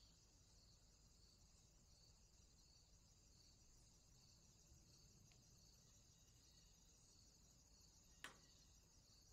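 Faint insect chirping: a steady high trill with soft pulses about twice a second. A single sharp click comes near the end.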